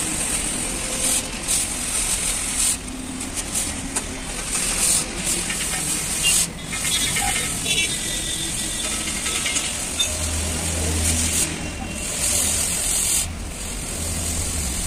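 Oxy-fuel gas cutting torch cutting through the steel plate of a truck body: a steady hiss of the gas and cutting-oxygen jet, which dips briefly a few times.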